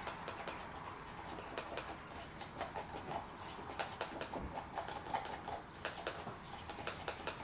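Wooden stirring stick scraping and tapping inside a plastic cup, working colloidal silica and chopped glass fibre into polyester resin to make a thick paste: a run of faint, irregular clicks.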